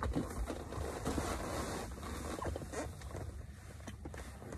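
Rustling of a nylon windbreaker and handling noise from the phone shifting, quieter after about three seconds, over a low steady hum.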